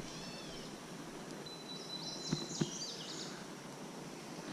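Songbirds singing a few short high phrases, one of them a thin held whistle, over a faint steady outdoor hiss, with two light taps about halfway through.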